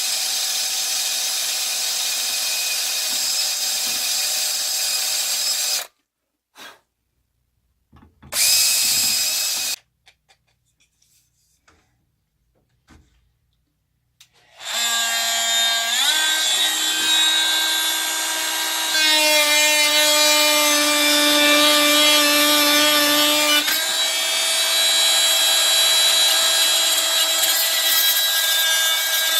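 Dremel rotary tool whining as it carves into soft wood. It stops after about six seconds, gives a short burst a couple of seconds later, then starts up again with a rising pitch and runs on, its pitch shifting a couple of times.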